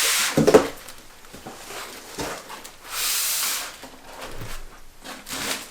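Packaging rustling and scraping as a PC case is drawn out of its box and wrapping, in several noisy bursts: one at the start, a longer one about three seconds in and a shorter one near the end.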